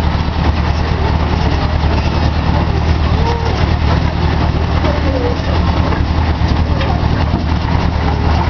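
Steady low engine drone of a tourist road-train ride, heard from on board as it drives along, with faint voices in the background.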